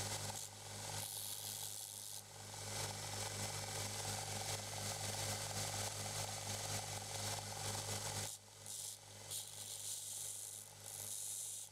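Belt grinder running with a steady motor hum while a steel blade cut from a reciprocating saw blade is ground against the abrasive belt, hissing and scraping in stretches. The grinding drops off briefly about eight seconds in and then picks up again.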